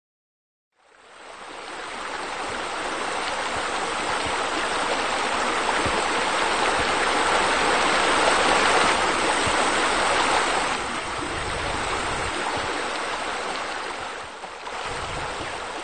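A steady rushing sound like running water, fading in about a second in, swelling slightly toward the middle and easing off a little later.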